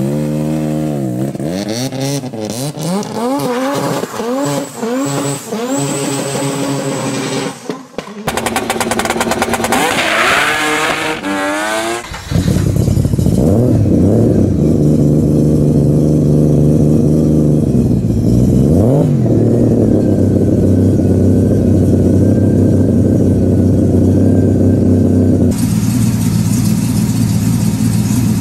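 Mazda RX-7 rotary engines. First, repeated throttle blips, the pitch rising and falling with each rev. Then a turbocharged 2.0-litre three-rotor 20B idles steadily, with one short rev blip in the middle.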